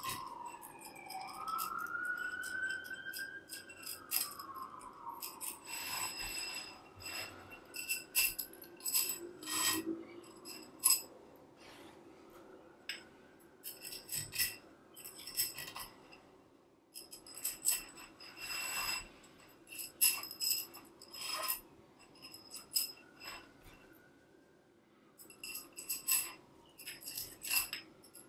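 Aluminium tensegrity struts and the metal end hooks of elastic cords clicking and clinking as they are unhooked and re-hooked by hand: irregular light taps, several with a short high metallic ring. Now and then a faint wavering squeal, as of cord or metal rubbing.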